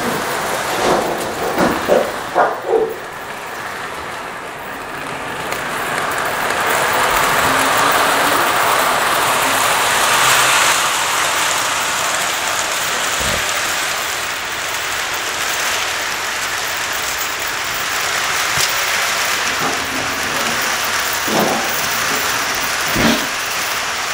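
Lionel tinplate O gauge toy train running on three-rail track: a steady whirring rumble of motor and wheels that swells for a few seconds about a third of the way in, with a few sharp clicks near the start and again near the end.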